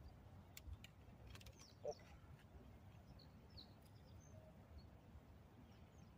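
Near silence outdoors: a few faint, short bird chirps over a low background hush, with a couple of soft clicks and one brief low sound about two seconds in.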